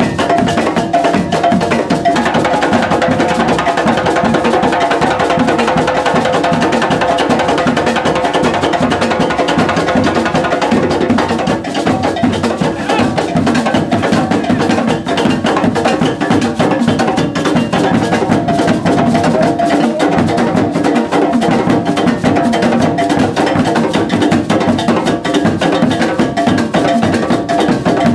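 Ghanaian drum ensemble of tall barrel drums and hand-held drums playing a dense, fast, interlocking dance rhythm of sharp hand strokes at a steady loud level.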